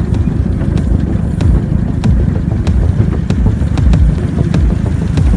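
9-inch gauge ride-on steam train running, heard from a passenger car: a steady low rumble with a sharp click about every two-thirds of a second.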